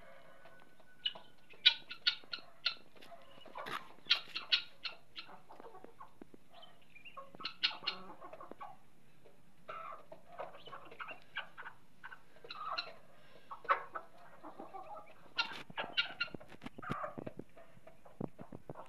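Chickens clucking in short, irregular bursts of calls, on and off, with several birds calling from a coop.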